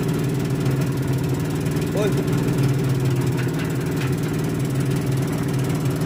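Double-drum road roller's engine running at a steady speed while driving, with a short high-pitched sound about two seconds in.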